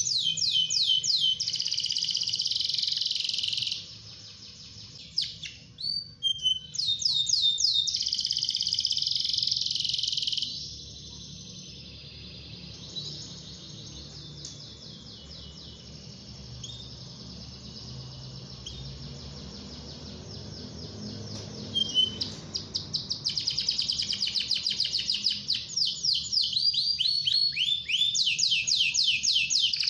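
A domestic canary singing long runs of fast trills, rolls of quickly repeated falling notes. The song breaks off for about ten seconds in the middle, leaving only faint chirps, then starts again strongly.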